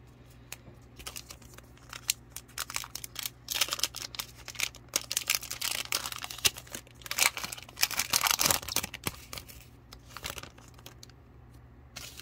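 Foil wrapper of a 2022 Donruss Optic football card pack being torn open and crinkled by hand: scattered crackles at first, then two longer spells of tearing and crinkling in the middle.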